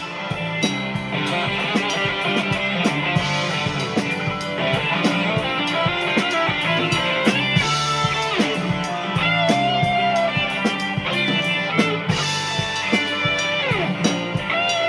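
Rock band instrumental passage: a lead electric guitar plays a solo line with bending, gliding notes over bass and a drum kit keeping a steady beat.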